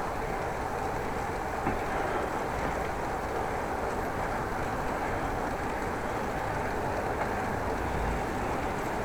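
Steady rushing noise of wind and rolling tyres from a moving bicycle, heard through an action camera's microphone, even and unbroken with no distinct knocks or tones.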